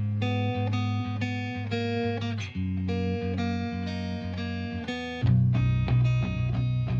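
Background music led by plucked guitar, with notes changing in a steady rhythm; a heavier bass line comes in about five seconds in.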